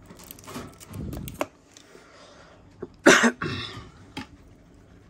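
A person coughing once, loudly, about three seconds in. A few small sharp clicks come before and after it.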